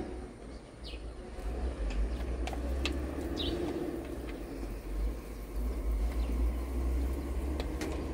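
Quiet outdoor background: a steady low rumble, two short bird chirps about one and three and a half seconds in, and a few light clicks as parts are handled at the excavator's control valve.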